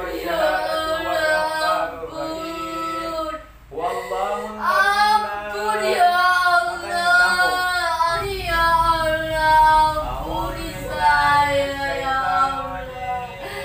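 A woman's voice wailing in long, drawn-out, sung notes that slide in pitch, with a short break about three and a half seconds in. It is the chanting-like crying of a woman under ruqyah.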